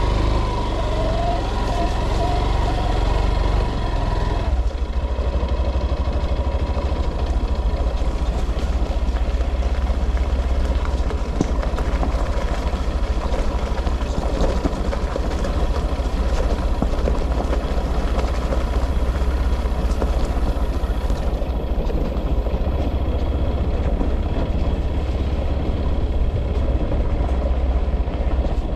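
A vehicle engine running steadily, with continuous deep rumble.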